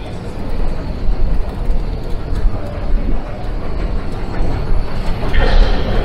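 Underground station hall ambience: a steady low rumble of rail and machinery, with a brief louder noise near the end.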